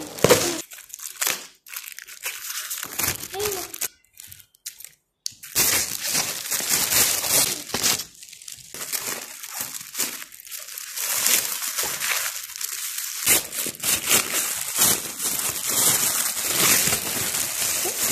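Metallic foil and plastic gift wrapping being crinkled and torn open by hand, a dense crackling rustle with a short break about four seconds in.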